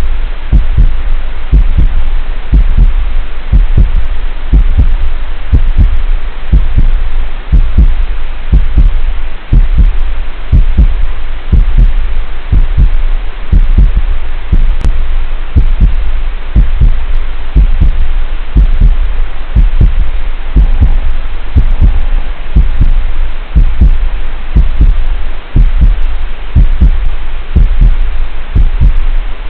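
Loud, repeated low thumps, about two to three a second, over a steady hiss.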